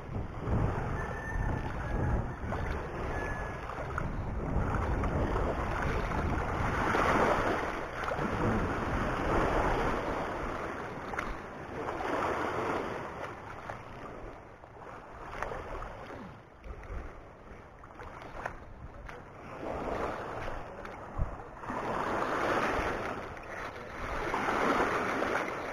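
Small waves washing in over a rocky, pebbly shore, swelling and fading in repeated surges a few seconds apart, with wind rumbling on the microphone.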